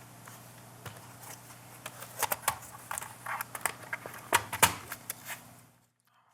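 Irregular light clicks and taps of a laptop palm rest being handled and fitted onto its hinges, the loudest about four and a half seconds in. The sound cuts out near the end.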